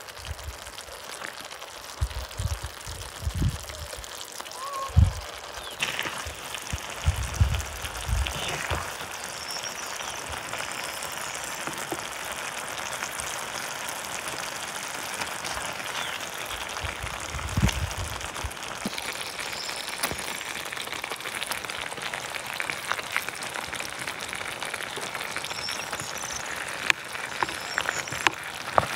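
Tomato sauce simmering in a clay pot of cauliflower, a steady fine crackle and bubbling. A few low thumps in the first nine seconds and once more near the middle.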